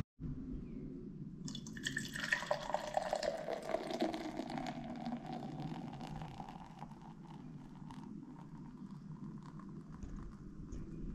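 Beer being poured from a can into a glass. The stream starts splashing about a second and a half in and is loudest over the next few seconds, then settles into a quieter fizzing as the foam rises.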